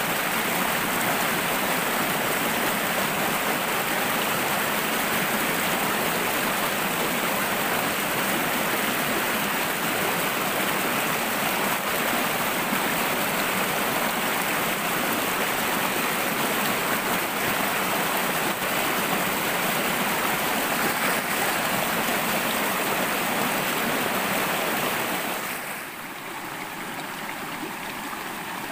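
Shallow, fast stream rushing over rocks: a steady, full wash of water. Near the end it drops to a quieter, thinner rush.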